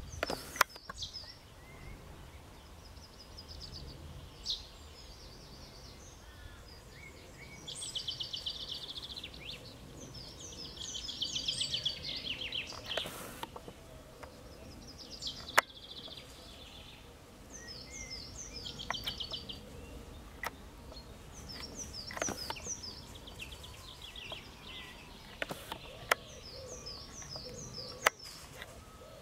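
Songbirds singing: phrases of quick, high down-slurred chirps and trills repeated every few seconds over a steady low background noise. A few sharp clicks stand out, the loudest about halfway through.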